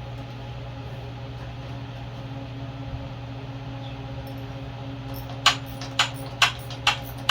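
Steady low hum, then from about five seconds in a socket ratchet clicking in short even strokes, about two a second, as a bolt is worked in a stripped-out aluminium housing.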